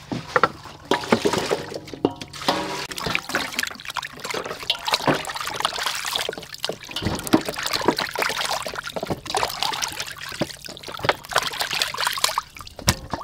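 Raw chicken drumsticks being washed by hand in a large stainless steel bowl of water: irregular splashing, sloshing and trickling as the pieces are rubbed, lifted and dropped back.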